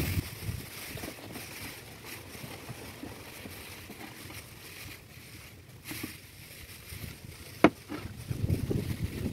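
Clear plastic wrap crinkling and rustling as hands press and roll a chicken roll inside it, squeezing out the air. A single sharp click comes about three-quarters of the way through, and a low rumble near the end.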